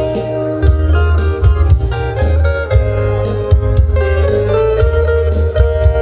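Band music with a steady drum beat, strong bass and guitar.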